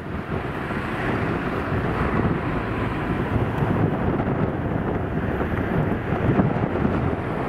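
Strong gusty wind buffeting the microphone, mixed with the steady rumble of an Airbus A320's jet engines on short final.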